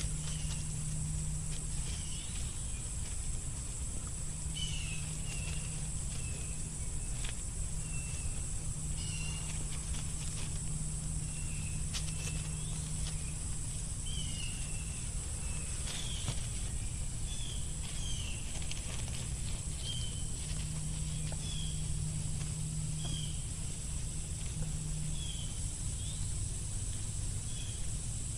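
Nine-banded armadillo rooting and scuffling through dry fallen leaves with scattered faint rustles and crackles. A steady high drone runs behind it, with short high chirps about once a second.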